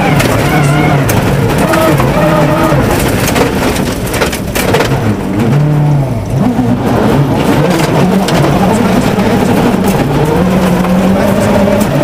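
Ford Focus WRC rally car's turbocharged four-cylinder engine heard from inside the cabin at full stage pace on gravel: revs climbing and dropping through gear changes. It eases off around four to six seconds in for a bend, with some clatter, then pulls hard again.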